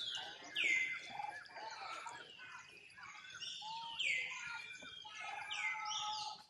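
Birds calling: a repeated sharp call that sweeps steeply down in pitch and levels off, about every second and a half, among other short chirps.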